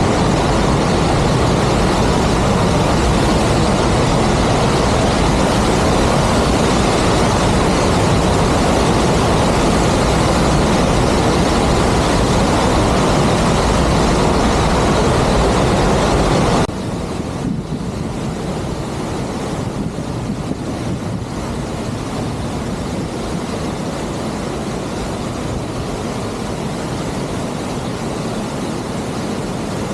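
Sgwd yr Eira waterfall, a loud steady rush of falling water heard from close by. A bit over halfway through the level drops suddenly and the rush carries on quieter.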